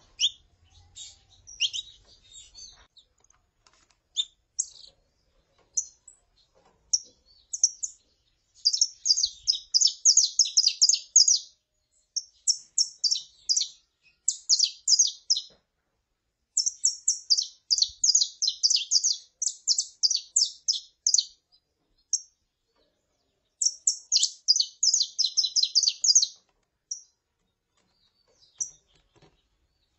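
Saffron finches calling and singing, the female calling and the male singing: scattered single high chirps, and four bursts of rapid high notes lasting a few seconds each.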